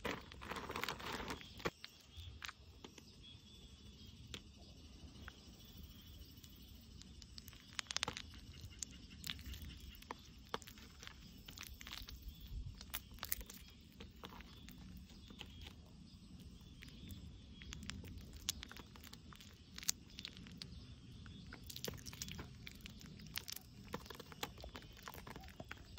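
Fresh wax honeycomb crushed and squeezed in a bare hand: irregular sticky crackling and tearing of the wax cells, with a few louder crackles along the way.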